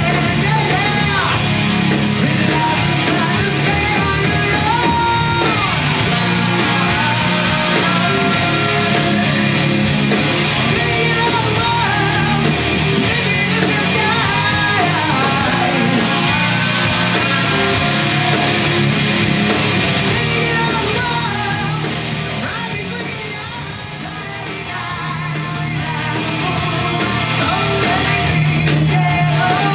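Live hard rock band playing loud: distorted electric guitar through a Marshall amp, electric bass and a full drum kit, with singing. The volume dips briefly about two-thirds of the way through, then builds back up.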